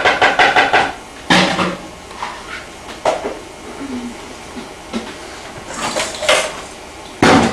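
Intermittent clattering knocks of hard objects being handled, a couple of seconds apart, the loudest near the end.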